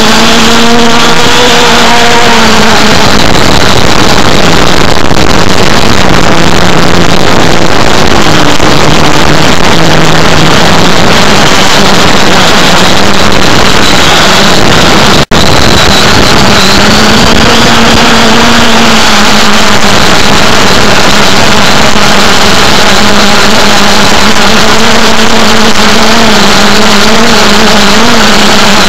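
Loud drone of a multirotor's electric motors and propellers over a constant rush of air, as picked up by the craft's onboard camera. The motor pitch drifts up and down with the throttle, and the sound cuts out for an instant about halfway through.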